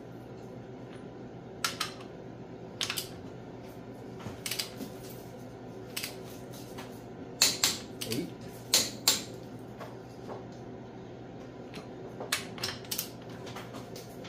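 Sharp metallic clicks and clinks, scattered and some in quick pairs, from a torque wrench and socket working on cylinder head bolts as they are torqued down, over a steady low hum.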